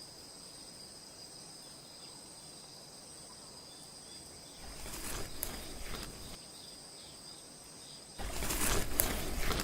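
Nature sound effects: two steady high-pitched tones like an insect drone, joined by a stretch of rustling noise about halfway through and a louder fluttering rush from about 8 seconds in.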